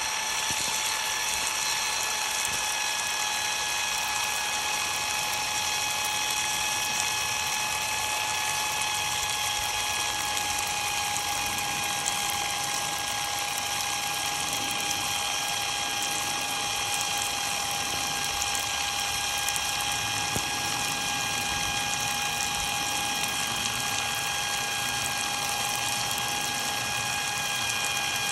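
Ryobi cordless impact driver's motor spinning with no load, a steady, even whine, while water sprays over the tool and its uncovered battery board with a constant hiss.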